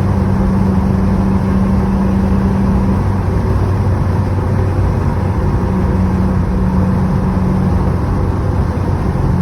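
2016 Subaru WRX's turbocharged flat-four engine running steadily under light load, kept down around 3,000 rpm while it is still warming up, over a steady haze of road noise. The engine note shifts a little about three seconds in and again near six seconds.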